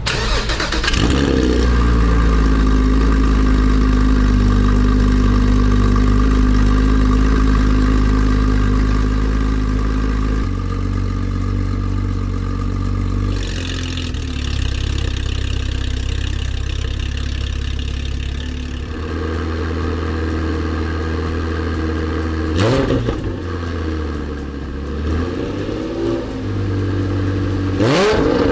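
2016 Porsche GT4's 3.8-litre flat-six idling through a full Akrapovic exhaust, headers included, with the exhaust valve opening partway through and the idle note shifting a few times. Several short throttle blips near the end, each a quick rise and fall in pitch.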